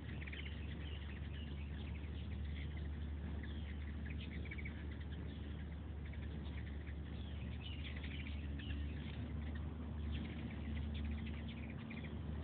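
Hummingbirds chittering around the feeders: rapid, high squeaky chirps in quick runs, over a low steady hum.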